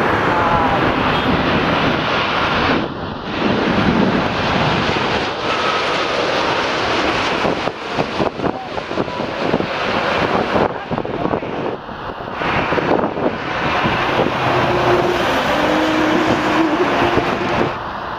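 Boeing 787-8 Dreamliner on final approach and landing, its jet engines making a steady, loud rumble mixed with wind on the microphone and passing road traffic. The sound is broken by a few abrupt cuts.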